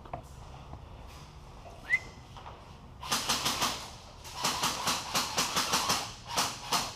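Airsoft guns firing on full auto indoors: two bursts of rapid shots at about ten a second, the second burst longer and lasting to the end.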